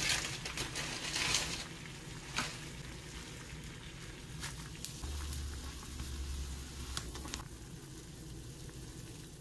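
Water at a rolling boil in a stainless steel saucepan, bubbling steadily and loudest in the first second or so, with a few light clicks as a block of instant ramen noodles is put in and cooks.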